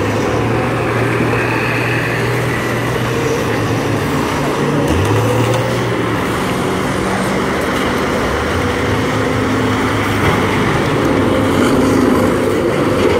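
Several school bus engines running hard as the buses race around a figure-eight track, a dense, continuous engine noise whose low note shifts up and down as individual buses accelerate and pass.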